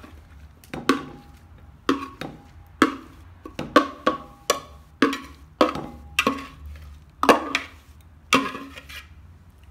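A kitchen utensil scraping and knocking against a plastic food-processor bowl as chopped kale stew is scraped out into a ceramic bowl: a series of sharp knocks about once a second, some with a brief ringing tone.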